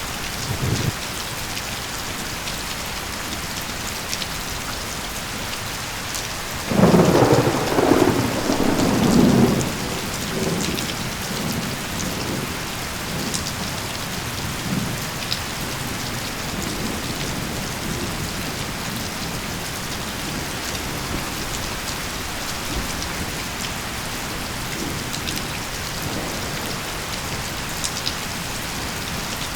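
Steady rain falling, with a rumble of thunder about seven seconds in that lasts a couple of seconds and dies away.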